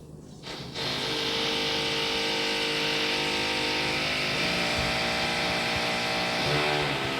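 Renovation power tool starting up about a second in and running continuously with a steady whine over a hissing grind, heard through the floor from the flat below; its pitch shifts twice as the load changes.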